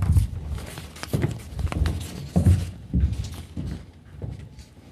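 Footsteps of a man in shoes walking across the hard floor of a television news studio: about seven heavy, evenly paced steps, fading near the end.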